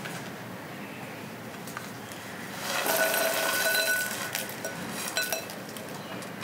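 Boiled corn kernels poured into a glass bowl about three seconds in, rattling in for a second or so with the glass ringing, then a few light clinks of kernels against the glass.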